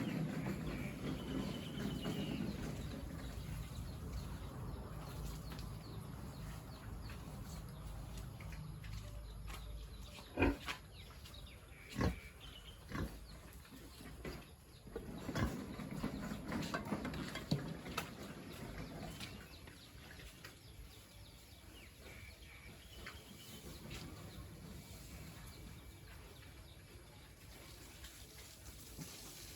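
Pigs grunting. A few sharp knocks come between the grunts near the middle.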